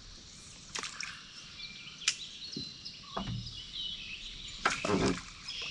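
Quiet outdoor background with small birds chirping faintly, broken by a few sharp clicks and knocks, the loudest a little before the end.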